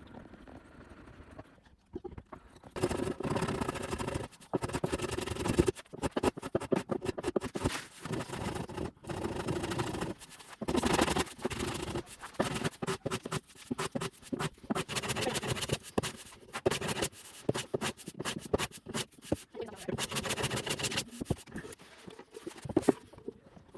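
Hand plane taking repeated strokes across oak, each a scraping swish about a second long with short gaps between, trimming proud dovetail pins flush with the board faces.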